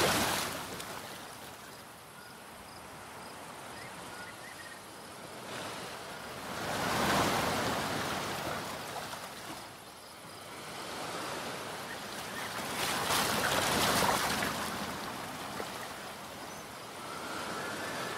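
Waves washing onto a shore, the surge rising and falling away about every six to seven seconds.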